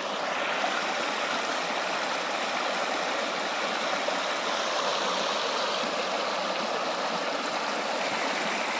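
A shallow rocky stream running and splashing over stones, a steady rush of water.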